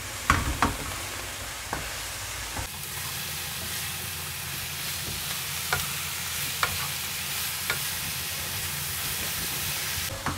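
Oyster mushrooms, champignons, onion and carrot sizzling steadily in oil in a frying pan over high heat, stirred with a wooden spatula that knocks against the pan a handful of times.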